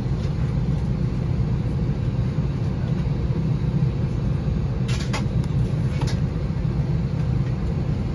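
Steady low hum of an Airbus A321neo cabin parked before pushback, the air conditioning and ventilation running. Two brief clicks about five and six seconds in.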